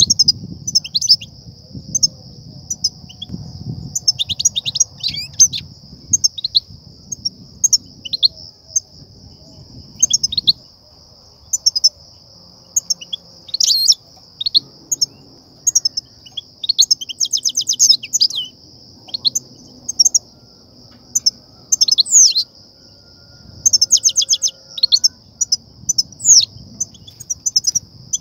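European goldfinches calling: bright short chirps and quick rattling runs of many notes, repeated again and again over a steady high-pitched hiss. This excited chattering (betbeta) is the call used to stir goldfinches into song and to lure them to trappers' nets.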